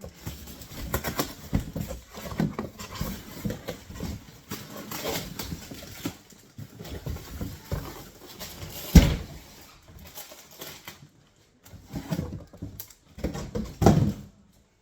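Packing materials rustling and crinkling as a boxed sewing machine is unpacked by hand, with a sharp knock about nine seconds in.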